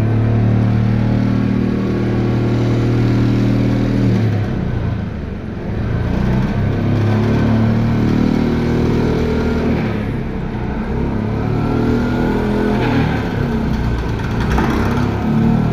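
An engine running loudly, its pitch holding steady, dropping away briefly about four to six seconds in, then coming back and shifting up and down, with a faint rising whine near the end.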